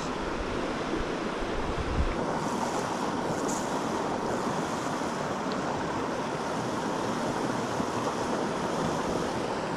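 Steady rush of a small mountain stream's water flowing over rocks, with some wind rumble on the microphone in the first couple of seconds.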